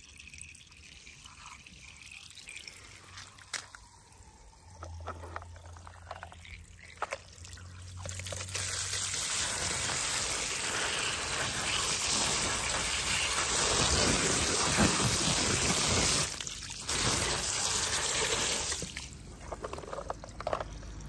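A stream of water squirted onto a muddy toy tow truck and the grass around it, splashing and washing off the mud. It starts about eight seconds in, breaks off briefly, and stops a couple of seconds before the end. Before it there are only a few small handling clicks.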